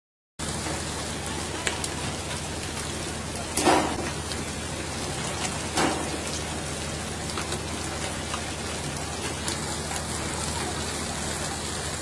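Steady hiss of water spray and sea rushing along the hull of a pole-and-line tuna boat, with two louder brief splashes about four and six seconds in. The sound cuts out for a split second at the very start.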